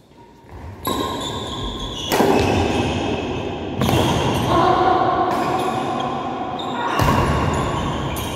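Badminton doubles rally: rackets striking the shuttlecock every second or two, each hit ringing on in a large echoing hall, with players' shoes moving on the court.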